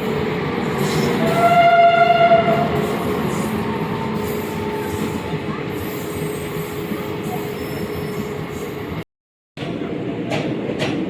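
A train running by with a steady rumble, sounding its horn once for about a second and a half, about a second in. Near the end the sound cuts out briefly, then the running train comes back with sharp wheel clicks.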